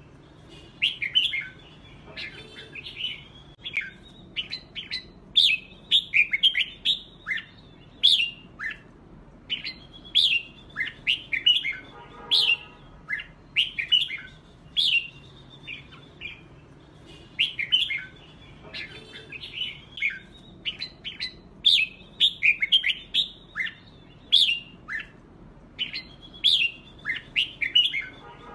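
Red-whiskered bulbuls in a singing duel, giving repeated short phrases of quick, chirpy whistled notes with brief pauses between them. A lower, harsh buzzy call breaks in about twelve seconds in.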